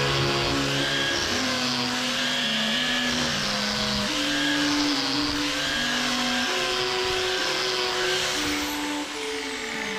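Angle grinder with a flap disc sanding the flat of a steel knife blade; its motor whine wavers as the disc is pressed on and eased off.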